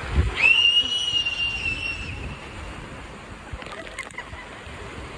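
A high-pitched scream held for about two seconds, rising at its start, over a steady wash of water-park noise and splashing.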